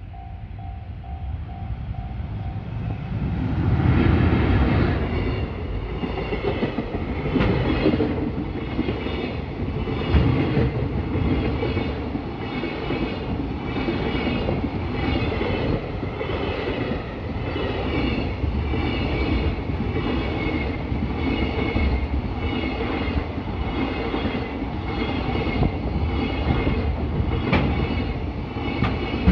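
JR Freight EF210 electric locomotive passing close by about four seconds in, the loudest moment, followed by a long train of container flat wagons. Their wheels give a steady, rhythmic clickety-clack over the rail joints. A pulsing tone sounds in the first few seconds and stops as the locomotive arrives.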